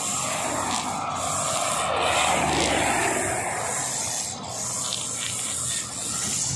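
Husqvarna 542RBS backpack brush cutter running, its two-stroke engine droning under throttle while the 2.2 mm nylon trimmer line whirs and hisses through grass. The rushing cutting noise swells about a second in and eases after three seconds.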